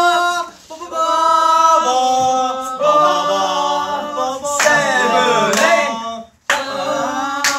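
A group of young men singing together a cappella, holding long notes in chords that move step by step about once a second. There are two short breaks, one about half a second in and a near-silent one shortly before the end.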